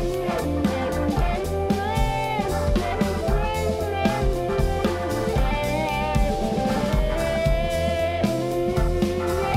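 Instrumental jazz-funk fusion band playing: an electric guitar lead with bending, sliding notes over a drum kit and a deep, pulsing bass line.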